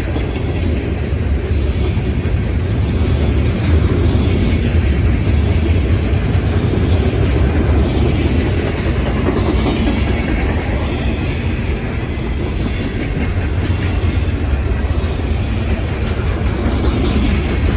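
Freight cars of a mixed manifest train rolling past: a loud, steady rumble of steel wheels on the rails.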